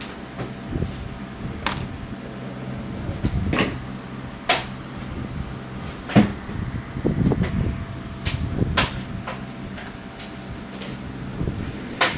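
Irregular clicks and knocks from handling the opened monitor's parts and tools, about a dozen of them, the loudest near the middle and just before the end, over a steady low hum.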